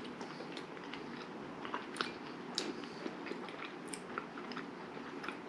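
Two people chewing mouthfuls of foie gras torchon on waffles, with a few small, sharp clicks scattered through.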